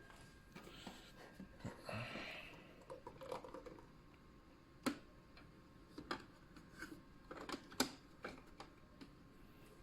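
Faint handling sounds of a built-in coffee machine's milk intake pipe being moved from the milk into the machine's container behind its door: scattered small clicks and plastic knocks, the sharpest about five seconds in, with a soft rustle around two seconds.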